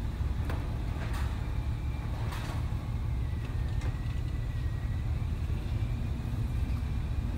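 Steady low rumble on board a container ship ploughing through heavy seas, with a few brief hisses of breaking water in the first few seconds and a faint thin whistle in the second half.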